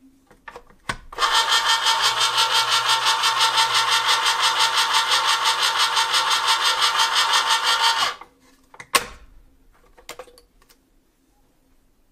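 Hamilton Beach Smooth Touch electric can opener running for about seven seconds as its cutter goes round the side seam of a small pop-top can, with an even pulse about four times a second. A few clicks and a knock come before it starts as the can is set in and the lever pressed down, and a sharp click about a second after it stops.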